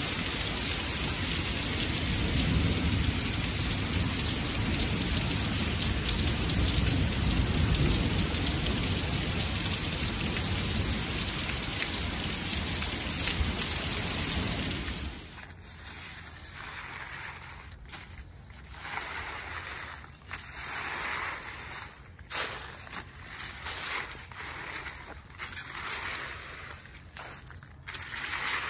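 Heavy rain pouring steadily, with a low rumble of strong wind under it. About halfway through it cuts off, and a leaf rake scrapes through dry fallen leaves in short strokes with brief pauses between them.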